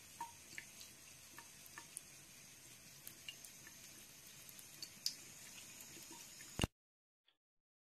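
Thin stream from a bathroom faucet trickling into the sink, faint, with scattered soft ticks and drips. It cuts off suddenly near the end.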